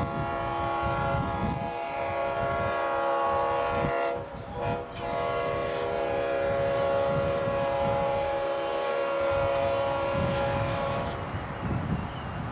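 Diesel locomotive air horn held in one long, steady chord over a low rumble, dipping briefly about four seconds in and stopping about a second before the end.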